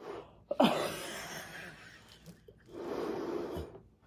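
A person breathing heavily: two long, breathy rushes of air, the first starting about half a second in with a sharp catch and fading out, the second about three seconds in.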